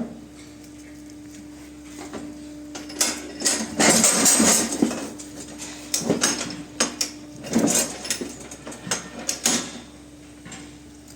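Irregular metal clattering, knocks and scraping from cow hoof trimming work, loudest in a burst a few seconds in and again in shorter bursts later, over a steady low hum.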